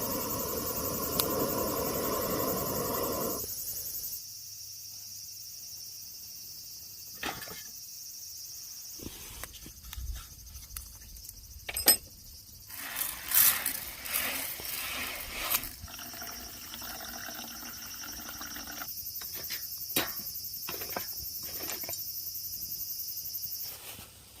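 Insects chirping in a steady high-pitched chorus, with scattered clicks and short clatters.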